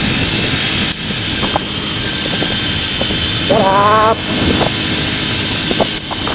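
Wind rushing over the microphone with a motorcycle engine running underneath while riding along at road speed.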